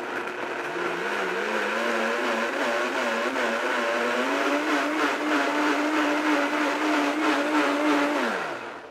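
Blendtec blender motor running while it purees a hot liquid, started at low speed. Its pitch climbs in steps over the first few seconds as the speed is turned up, holds steady, then falls as the motor winds down and stops near the end.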